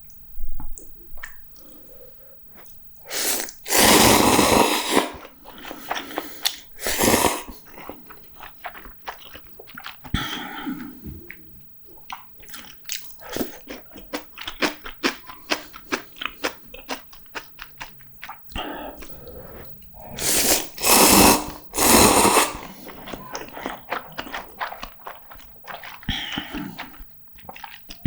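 A person eating close to the microphone: steady chewing with many short, wet mouth clicks and smacks, broken by louder bursts of eating noise, mostly a few seconds in and again about two-thirds of the way through.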